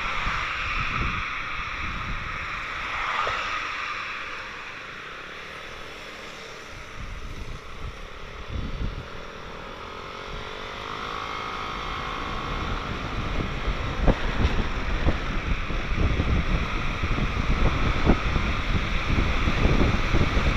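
Wind buffeting the microphone over the running of a Yamaha NVX scooter on the move. It is quieter about four to ten seconds in, where a faint wavering engine whine shows. After that the wind noise grows louder and gustier as the scooter picks up speed.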